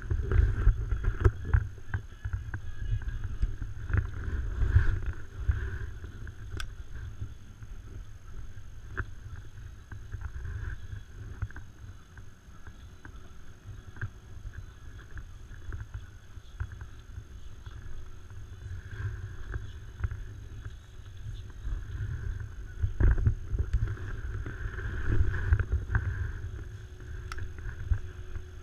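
Wind buffeting the action camera's microphone in gusts, with water lapping against the inflatable paddle board.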